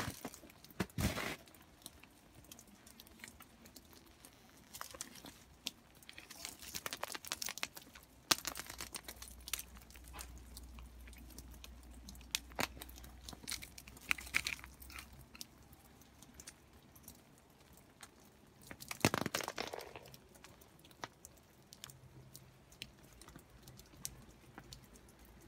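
Crunching and crackling of ice-glazed twigs and icy crusted snow close to the microphone, coming in short irregular bursts, the loudest about nineteen seconds in.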